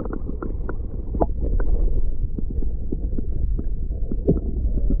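Stream water heard through a camera held underwater: a steady, muffled low rumble with many small scattered clicks and knocks.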